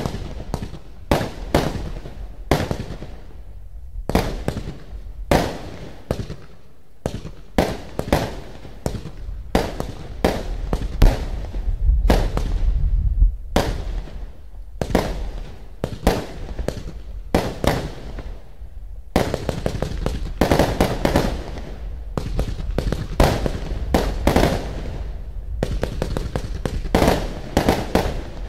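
Lesli Dream Theater firework cake (a multi-tube battery) firing a quick, uneven series of shots that pop and crackle as they burst overhead, growing denser and louder for several seconds past the middle.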